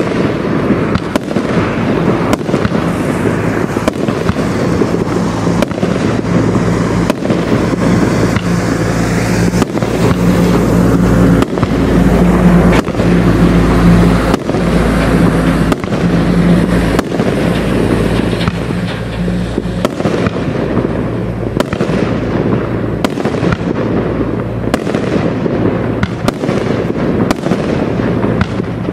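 Absolute Fireworks 'Battle Royale' 36-shot firework cake firing, with shots and aerial bursts following one another in quick succession.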